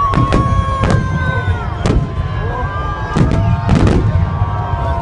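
Fireworks salute: a string of sharp bangs, some in quick pairs, over a continuous low rumble.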